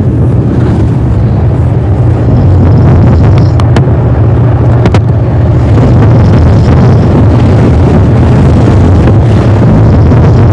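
A man snoring, heavily distorted and bass-boosted, so that it comes out as a loud, clipped, constant rumble with a strong low hum.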